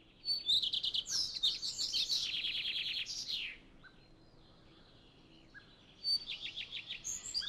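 A songbird singing two song phrases, each a quick run of high notes. The first lasts about three seconds and the second, shorter one comes near the end.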